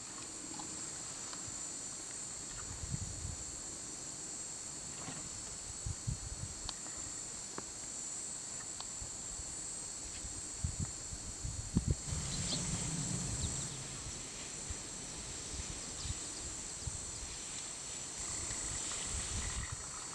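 Steady high-pitched chirring of insects, with irregular low thumps and rumbles close by, the loudest a cluster about twelve seconds in.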